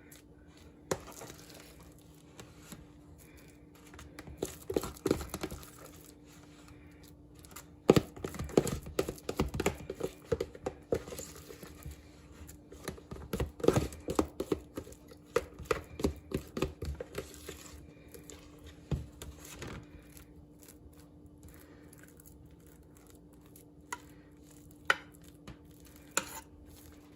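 A spoon scooping mashed potatoes and spreading them over a pie filling: irregular bursts of scraping, tapping and soft plops against the dish, in three busier spells with a few lone clicks near the end. A faint steady hum runs underneath.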